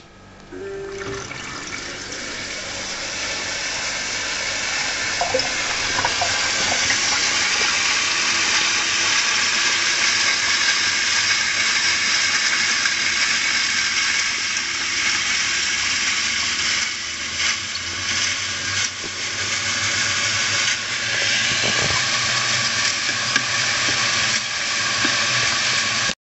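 Opened 500 GB hard disk drive running with its case flooded with water. A click at the start, then the platter spins up and churns the water into a loud rushing hiss that builds over the first several seconds and then holds steady.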